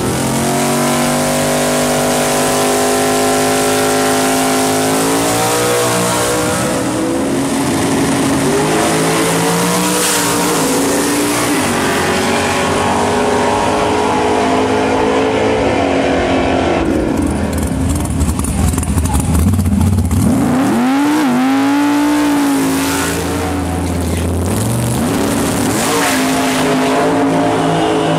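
V8 drag-racing cars' engines revving and accelerating hard, their pitch climbing in long rising sweeps. About two-thirds through, the engine sound drops low, then swoops back up.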